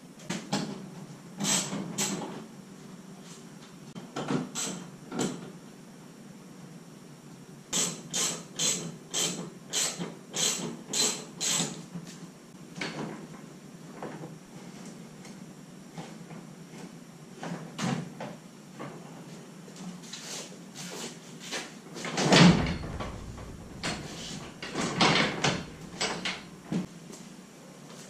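Metal knocks and rattles from an old sectional garage door panel, its rollers and hinges, as the panel is worked loose and slid out of its track, with quick runs of sharp knocks and one heavy thump about two-thirds of the way through.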